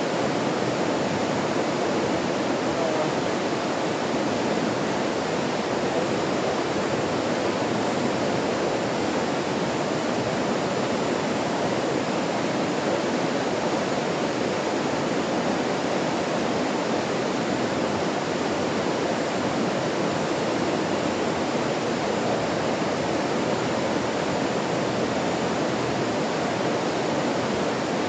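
Stream water flowing in a steady, unbroken rush, with no change in level.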